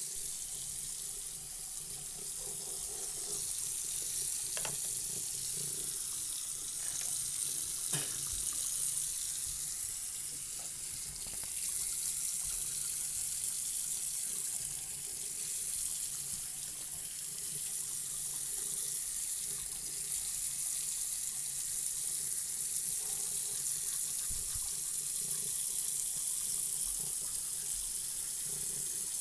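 Water running steadily from a tap, a continuous hiss, with a faint click twice.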